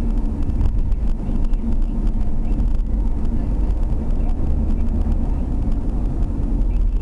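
Steady low rumble of a taxi's engine and tyres on the road while driving at speed, heard from inside the cabin.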